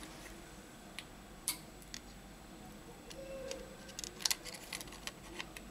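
Light clicks and taps of a Xiaomi Mi 9 SE replacement display module and the phone's frame being handled and fitted together, with a cluster of sharper clicks about four seconds in.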